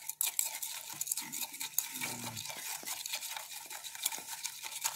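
Glass stirring rod stirring salted crushed snow in a glass beaker: rapid, uneven scraping and clicking of the rod against the glass and the icy slush as the salt is worked in.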